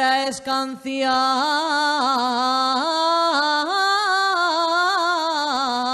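A woman singing an unaccompanied Asturian tonada, drawing a single syllable out into long, heavily ornamented notes that waver and slide. There is a short break for breath just after the start.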